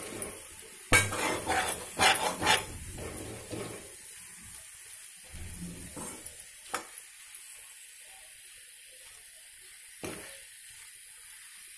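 A spoon stirring and scraping potato chunks through a thick yogurt-and-tomato masala in an aluminium kadai, over a faint sizzle of frying. The stirring is loudest from about a second in to just under three seconds, with a sharp knock of the spoon on the pan at the start. After that come only a few scattered knocks and scrapes.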